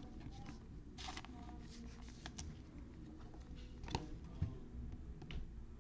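Faint rustling and scattered light clicks of plastic card sleeves being handled as a trading card is slid into a soft penny sleeve and then a rigid top loader, with the sharpest click about four seconds in.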